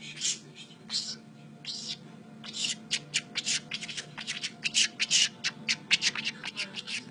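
A small bird sneezing over and over: short, sharp, hissy bursts, spaced out at first, then coming quickly, several a second, from about two and a half seconds in.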